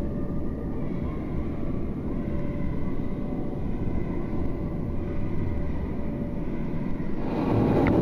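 Steady low rumble of indoor swimming-pool noise with a faint steady hum, and water sloshing close to the microphone that grows louder about seven seconds in.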